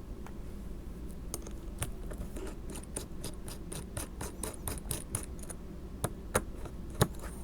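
Small metal clicks and ticks of M3 nuts and screws being fitted by hand with a small hex nut driver into aluminium MakerBeam parts. The clicks run at about five or six a second through the middle, with a few louder single clicks near the end.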